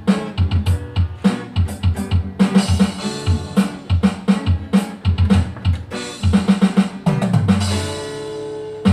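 Pop music with a drum-kit beat of bass drum and snare; about seven seconds in the drums drop out under a held chord.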